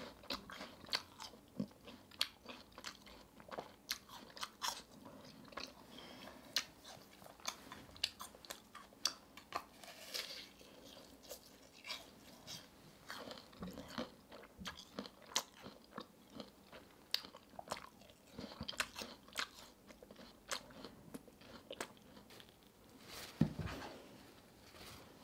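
Close-up crunchy chewing of a caramel-coated apple with a nut crust: many sharp, crisp crunches of the apple flesh and hard caramel. There is one louder, deeper thump near the end.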